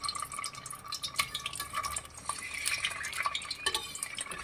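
Peeled boiled eggs shallow-frying in hot mustard oil: the oil sizzles with scattered crackles and pops, and a steel spatula clinks against the pan as more eggs are slid in.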